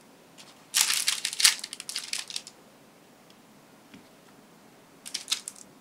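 Parchment paper crinkling as a tied baking-paper boat is handled and set into a stainless steel tray. A long burst of crackling begins about a second in, and a shorter one comes near the end.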